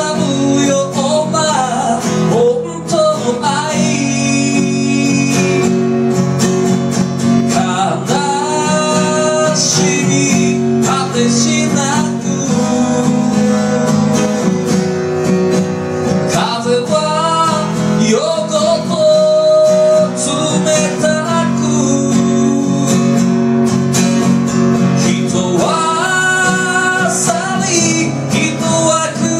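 A man singing a ballad while strumming his own acoustic guitar, a live solo performance.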